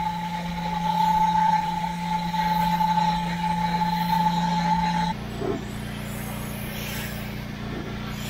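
Gas-engine 4000 PSI pressure washer running steadily while spraying soap from a foam cannon, a steady engine hum with a high steady tone over it. About five seconds in, the high tone stops and the sound drops to a quieter, slightly higher-pitched steady engine hum.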